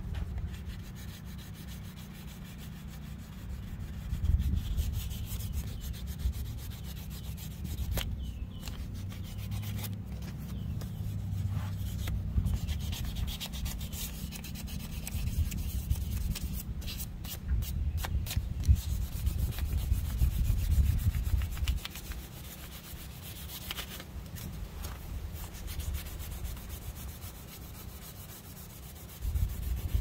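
Hand sanding of an old steam whistle's metal bell with abrasive paper: uneven back-and-forth scratchy rubbing strokes, over a low rumble.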